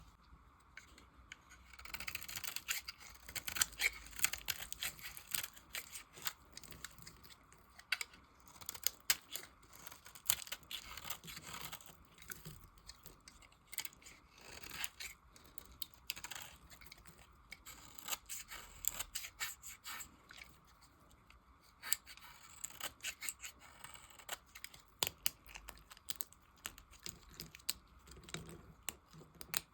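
A knife cutting through soap scraps, a run of crisp crunchy scrapes and many small sharp clicks at an irregular pace.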